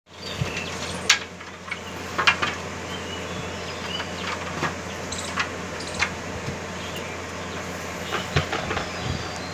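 Bamboo poles knocking and clacking together, with the rustle of a mosquito net being pulled down, over a steady background hiss and low hum. The sharp knocks come irregularly, the loudest about a second in and just after two seconds.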